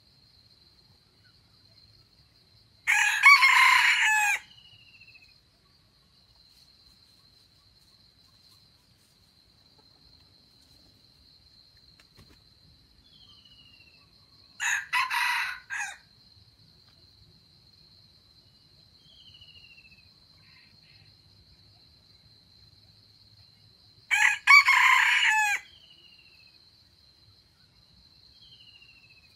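Red junglefowl cock crowing three times, each a short crow of about a second and a half, about ten seconds apart. A steady high insect drone runs underneath, and a small bird gives faint falling whistles between the crows.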